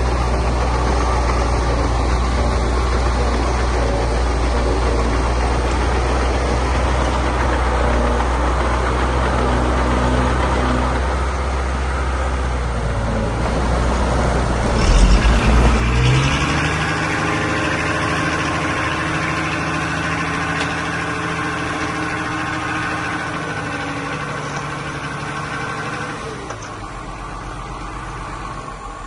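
Heavy diesel engines of earthmoving machines running. A deep, steady engine note holds for the first half. About halfway there is a brief loud clatter, then a higher engine note that slowly fades away.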